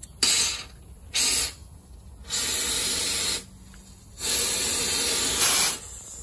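Compressed-air blow gun blasting air through a Unimog's front hub vent line in four bursts: two short, then two longer ones of a second or more. It is a test for a blockage, and the air goes through: the line is clear.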